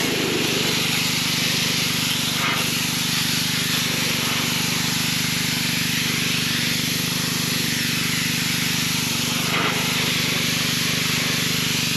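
Gas-engine pressure washer running at a steady speed, its water jet hissing as it sprays.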